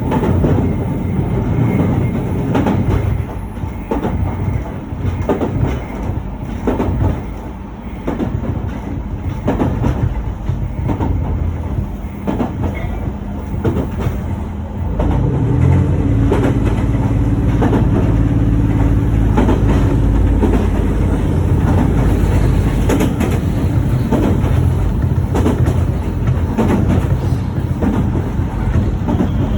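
A train running along the track, its wheels clicking over the rail joints. About halfway through, a louder steady low drone sets in and holds.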